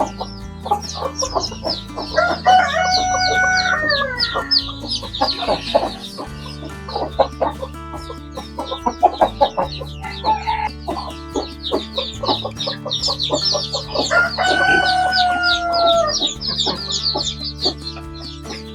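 Chickens clucking amid constant rapid high chirping, with a rooster crowing twice: once about two seconds in and again near fifteen seconds, each crow a long call that falls slightly in pitch at the end. Background music plays underneath.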